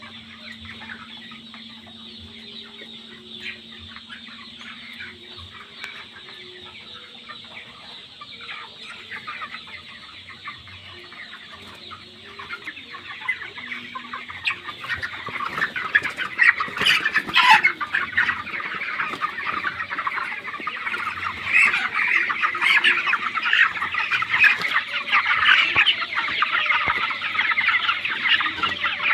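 A large flock of 25-day-old broiler chickens clucking and chirping together in a dense, continuous chatter, growing much louder about halfway through.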